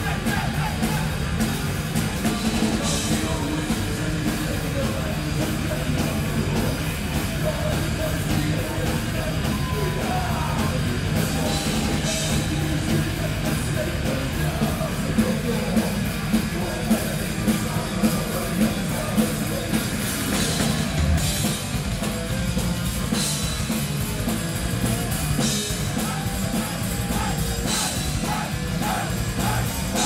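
Thrash metal band playing live: distorted electric guitars, bass guitar and drum kit, with some vocals. About halfway through comes a run of evenly spaced accented beats, roughly one and a half a second.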